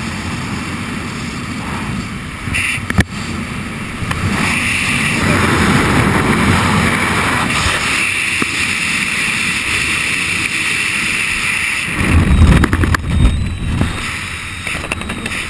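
Wind rushing over the camera microphone of a skydiver descending under a parachute canopy. It gets louder about four seconds in, with a sharp knock shortly before, and heavy low buffeting near the end.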